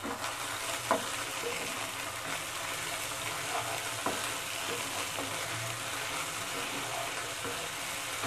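Chopped onions and ginger-garlic paste sizzling steadily in hot oil in a frying pan, stirred with a wooden spatula that gives a few light knocks against the pan.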